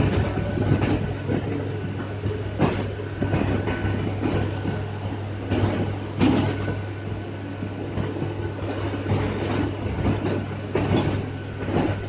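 Electric local train (EMU) running, heard from inside a coach: a steady low hum with irregular clacks and clunks from the wheels on the rails.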